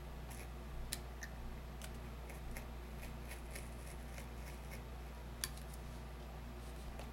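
X-Acto hobby knife cutting through a paper template and duct tape on a cutting mat: a scatter of faint short scratches and ticks from the blade, with one sharper click about five and a half seconds in, over a steady low hum.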